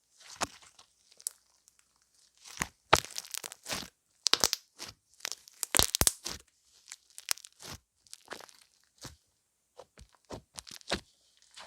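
Irregular crinkling and crunching noises, coming in short spells with quiet gaps, some of them sharp and loud.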